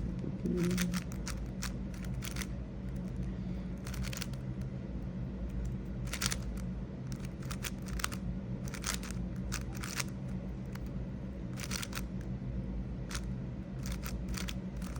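GAN 562 M 5x5 speed cube being turned by hand: quick clicking layer turns in irregular runs. A steady low hum runs underneath.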